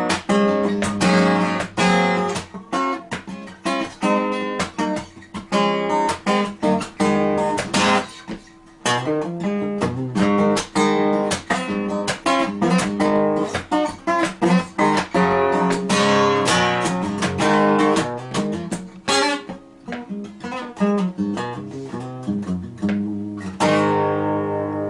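A 1976 Japanese-made Alvarez 5059 acoustic guitar played solo: a quick run of picked notes and strummed chords, ending on a chord struck near the end and left to ring.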